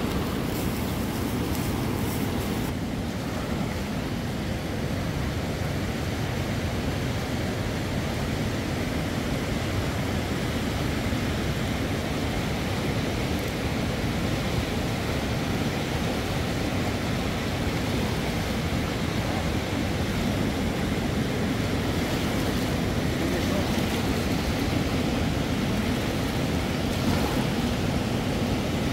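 Steady rushing of a river's flowing water, an even noise that holds the same level throughout.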